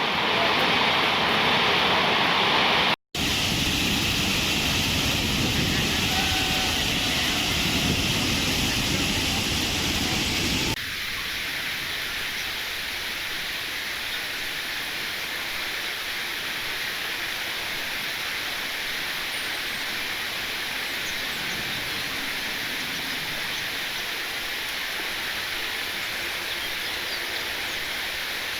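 Waterfall: a steady rush of falling water. It cuts out for a split second about three seconds in, and about eleven seconds in changes abruptly to a quieter, thinner rush.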